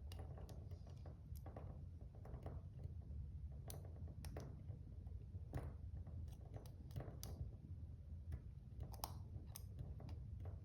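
Lock picking tools working in a padlock's keyway: irregular light metallic clicks and scrapes as the pins are set, over a steady low hum.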